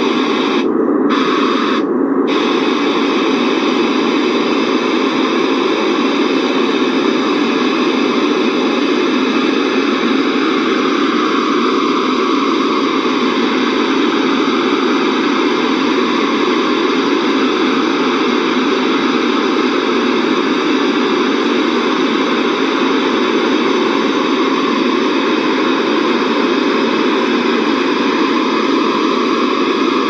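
Steady, loud test noise, a hiss like static, played through a car's sound system while it is being tuned. There is almost nothing below the lower midrange. The treble cuts out twice briefly near the start, and the tone shifts slightly about ten to fourteen seconds in, as the settings are adjusted.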